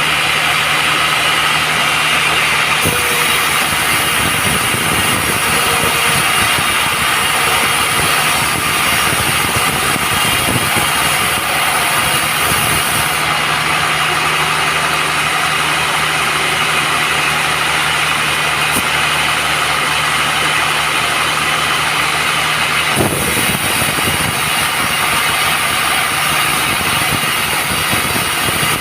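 Band sawmill running: a steady machine drone with a high hiss, changing abruptly about 3 seconds in and again about 23 seconds in.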